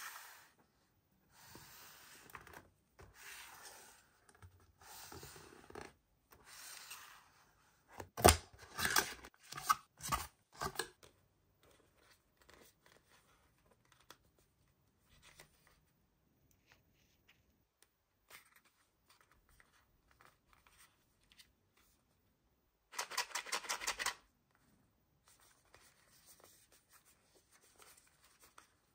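Cardboard bath-salt gift boxes being handled on a table: a run of scraping and rustling strokes, then a cluster of sharp knocks and taps about eight to eleven seconds in, and a quick rattling burst about twenty-three seconds in.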